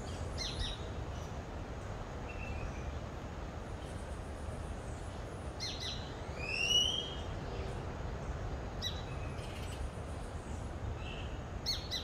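Wild birds chirping and calling: scattered short high chirps and clicky notes, with one louder rising whistled call about six and a half seconds in. A steady low rumble runs underneath.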